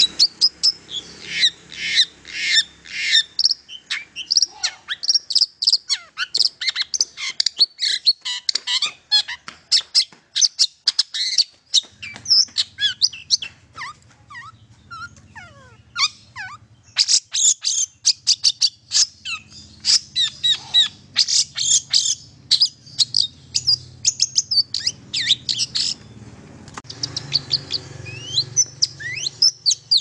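Long-tailed shrike (cendet) singing a fast, varied run of sharp chirps and short trills: the kind of lively song used as a lure to get a silent shrike to start singing.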